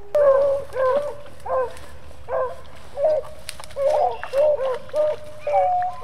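A pack of beagles baying on a rabbit's trail: short, arched yelps repeating about twice a second, with several dogs overlapping in the second half.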